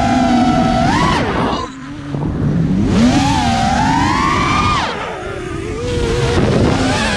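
FPV racing drone's brushless motors and propellers whining, the pitch rising and falling with the throttle. The whine drops away briefly about two seconds in, climbs again, and sinks near five seconds before rising once more.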